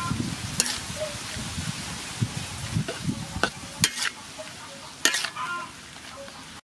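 Beef, bitter gourd and basil sizzling in a metal wok while a metal spatula stirs and tosses them, with a few sharp clinks and scrapes of the spatula against the pan.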